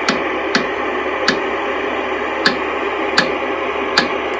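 Static hiss from an old black-and-white TV's speaker while it sits between stations, with sharp clicks every half second to a second as the UHF tuner is switched over and turned.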